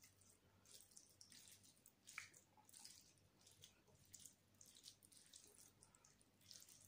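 A hand mixing mutton biryani rice with curry gravy on a plate: a faint, irregular run of soft wet squelches, with one sharper squelch about two seconds in.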